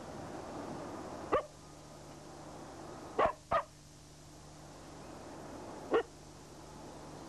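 A dog barks at a passing train: four short sharp barks, a single one, then a quick pair, then one more near the end. Under them runs the steady rumble of the slow-moving loco-hauled train, growing slightly louder.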